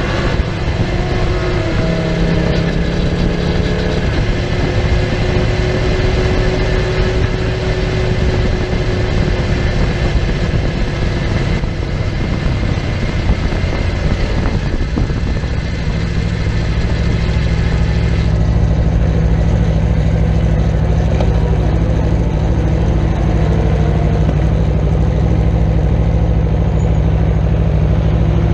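Aprilia RSV4's V4 engine running under heavy wind rush at speed. About two-thirds of the way in the rushing eases and the engine settles into a steady low note.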